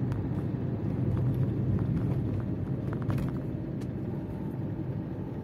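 Car's engine and tyre noise heard from inside the cabin while driving slowly in town traffic: a steady low rumble.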